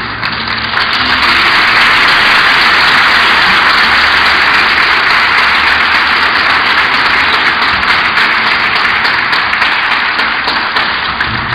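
Congregation applauding steadily, loud and sustained, easing slightly near the end.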